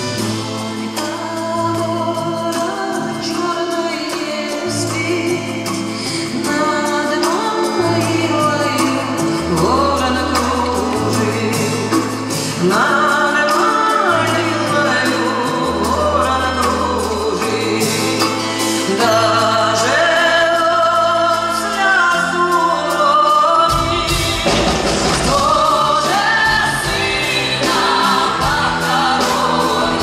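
A woman singing a slow song live into a handheld microphone over a band, with a bass line moving in long held notes beneath her voice. About three-quarters of the way through, drums come in and the accompaniment grows fuller.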